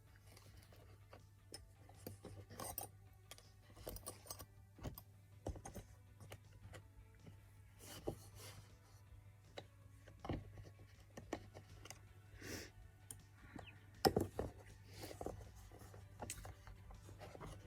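Small metal manicure tools from a vintage 1950s nail set clinking and clicking now and then as they are handled, over a faint steady low hum.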